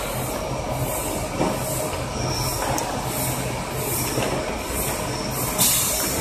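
Automatic potato weighing and bagging machine running: a steady mechanical rumble and clatter, with a high swishing pulse repeating about twice a second.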